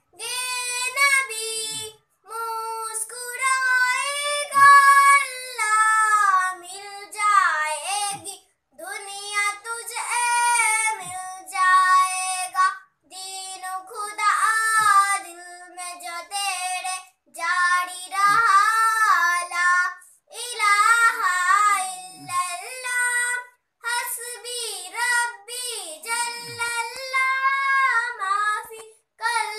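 A young girl singing an Islamic devotional naat unaccompanied, in a high voice, phrase by phrase with short breaks for breath between lines.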